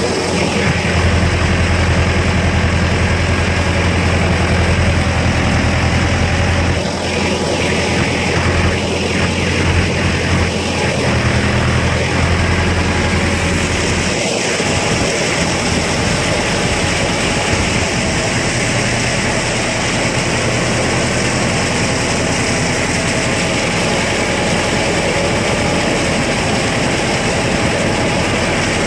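Mahindra Arjun Novo 605 DI-i 4WD tractor engine running steadily under load while driving a rotavator through flooded paddy mud. The strong low hum eases about halfway through, leaving a rougher, steadier churning noise.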